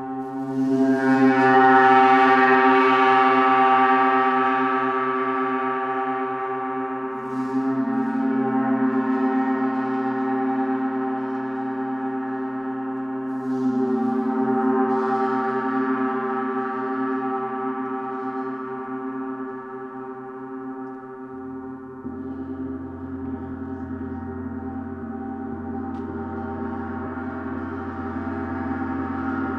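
Planetary gongs being played: a long, dense ringing of many steady tones that swells up again with a new stroke about every six or seven seconds, with a deep low hum joining about two-thirds of the way through.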